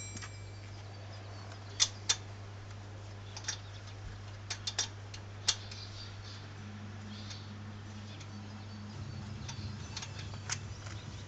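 Scattered sharp clicks and knocks from work on a car wheel, about eight in all and a few seconds apart, over a steady low hum.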